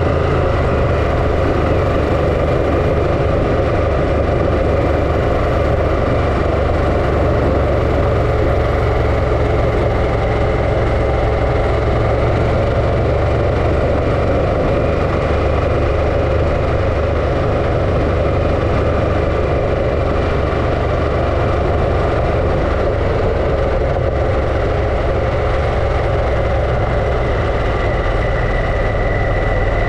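Harley-Davidson Pan America's 1250 cc V-twin engine running steadily, at an even level throughout.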